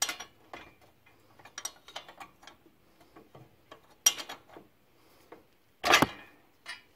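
Hand ratchet wrench clicking in short runs as the bolts and stud nut on a new drop spindle are tightened. Two louder metal knocks come about four and six seconds in.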